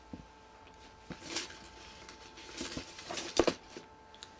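Faint rustling and a few light taps and clicks as a paper cut-out and a pen are handled, the sharpest clicks a little past three seconds in.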